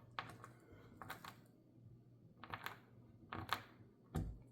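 Small screwdriver-and-knife handling noises while the back screws of a titanium folding knife are driven in: short clicks and light scrapes in four or five brief clusters, then a soft low thump near the end.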